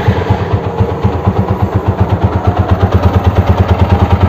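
TVS Apache RTR 200 4V's single-cylinder engine idling steadily just after starting, with an even, fast beat. The engine has been rebuilt, and the rattling it made before is gone.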